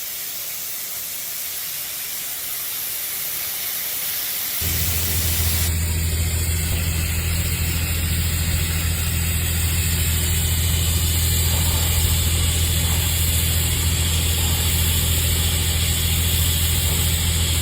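TIG welding: a steady hiss, then about four and a half seconds in a loud, steady low buzz sets in suddenly and runs on under the hiss.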